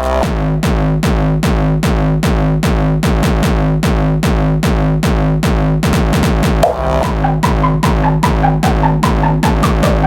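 Hardstyle electronic dance music with heavy reverb: a kick drum hits steadily about two and a half times a second over a low synth bass. A higher synth melody comes in about seven seconds in.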